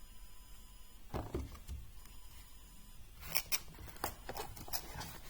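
Small metal-and-plastic clicks and knocks from handling machinist tools and their cases: a couple of knocks just over a second in, then a quick run of light clicks in the second half.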